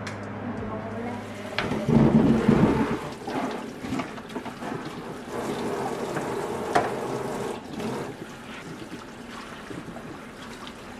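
Tap water running onto cherry tomatoes in a metal mesh colander in a stainless steel sink as they are rinsed by hand. A loud low rush of water about two seconds in, then steady splashing that grows quieter in the last few seconds.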